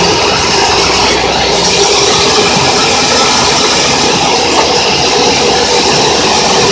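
Portable sawmill running loud and steady while an acacia board is sawn through, with the carriage rattling along its rails.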